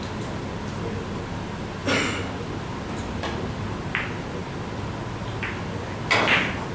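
Carom billiard balls clicking during a shot: the cue striking the cue ball and the balls knocking together. About four sharp clicks spread over several seconds, the loudest near the end.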